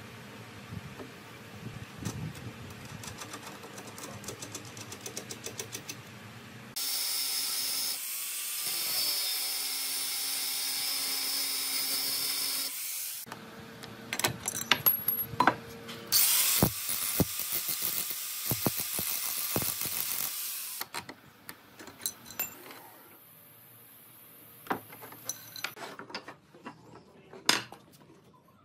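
A hand-held power tool runs in two bursts of several seconds each, starting and stopping abruptly, with sharp clicks and knocks of parts being handled before, between and after them.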